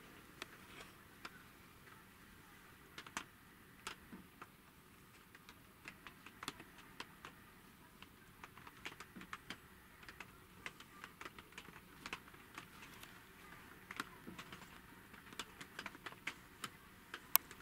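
Faint, irregular small clicks and taps, a few each second, over quiet room tone.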